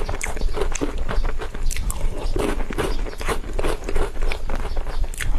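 Close-miked eating of whipped cream cake: many quick mouth smacks and chewing sounds in an irregular run.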